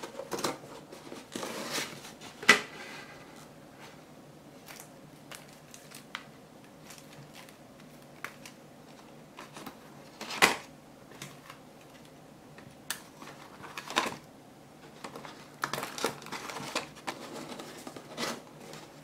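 Paperboard of a paper-craft vending machine being handled and its front panel opened and closed: rustling and scraping of card with scattered sharp taps and clicks, the loudest about two and a half seconds in and again around ten and fourteen seconds in.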